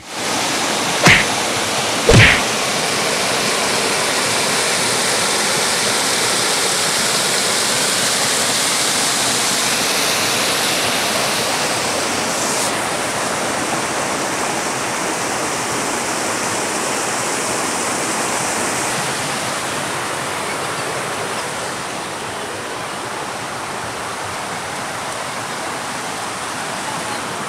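Shallow rocky river rushing steadily over stones in riffles. Two short loud knocks about one and two seconds in, and the rush gets a little quieter near the end.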